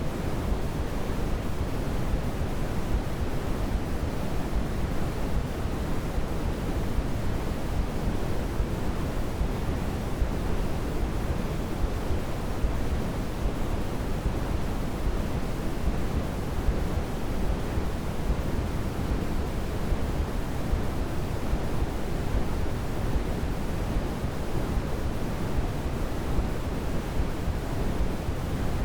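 Steady sleep-aid noise: a constant, even rush that is heaviest in the low end and softer in the highs, in the manner of pink noise. It does not change.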